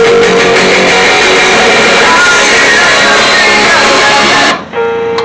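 A rock song with electric guitar played loud through a motorcycle's upgraded stereo speakers, turned up a little past halfway and showing a hair of distortion. The music breaks off about four and a half seconds in.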